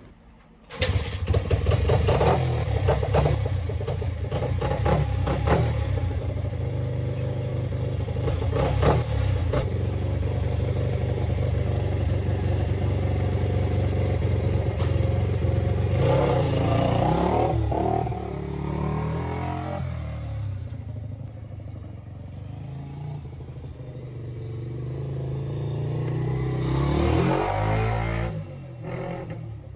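Honda XR80 dirt bike's small four-stroke single-cylinder engine running as the bike is ridden, fitted with a newly replaced clutch cable. It comes in suddenly about a second in, and the revs rise and fall around the middle and again near the end.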